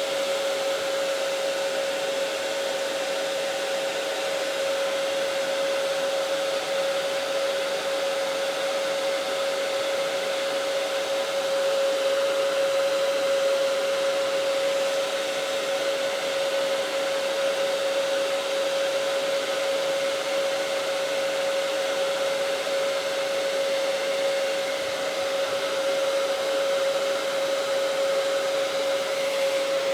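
Handheld hair dryer running steadily, a constant whine over the rush of air, heating adhesive grip tape so it sets onto a pistol frame.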